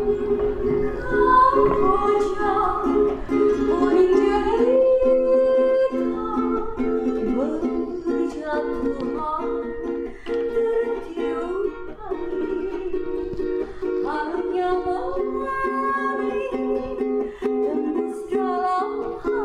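Background music: a light, evenly strummed plucked-string accompaniment with a melody line over it.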